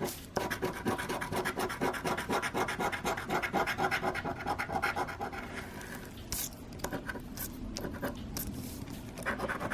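Scratch-off lottery ticket being scraped, the coating rubbed off in rapid short strokes. The strokes thin out to a few separate scrapes about six seconds in.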